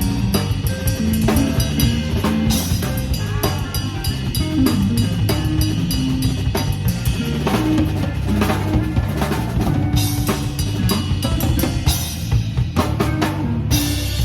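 A live band plays a jazz tune, with the drum kit to the fore: snare, bass drum and rimshots over moving bass notes, and a cymbal crash near the end.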